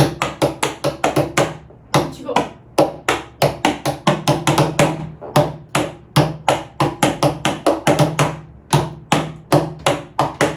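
Hands drumming a song's rhythm on a tabletop: quick sharp taps and thuds in phrases, with short pauses between them.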